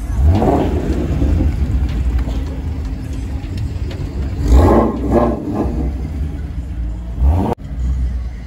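Ford Mustang Shelby GT350's V8 running with a deep, steady rumble and revved three times, near the start, in the middle and near the end, with the sound cutting out suddenly for an instant just after the last rev.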